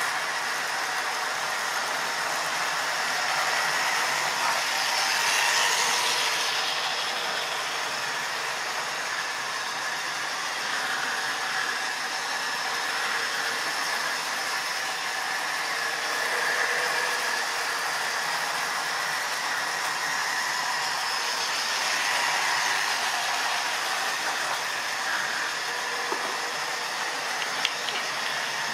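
OO gauge model train running on the layout's track: a steady whirring rattle of the locomotive's electric motor and the wheels over the rails, swelling twice as the train runs close by, with a couple of sharp clicks near the end.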